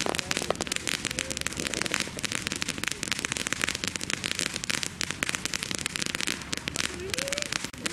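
Dense, steady crackling made of many rapid, irregular small clicks.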